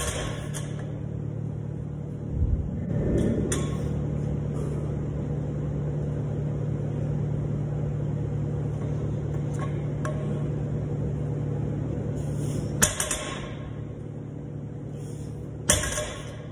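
Several sharp metallic clanks of iron weight plates and barbell, the two loudest near the end, over a steady low hum in a gym.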